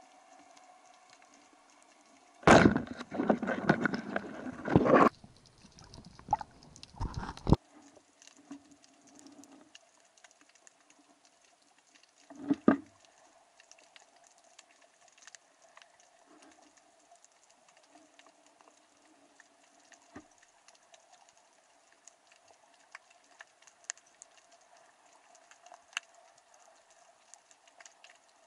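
Underwater sound picked up through a camera's waterproof housing: a faint, steady crackle of scattered clicks over a low hum. A loud rush of noise starts a few seconds in and lasts about two seconds, with shorter bursts around seven and twelve seconds.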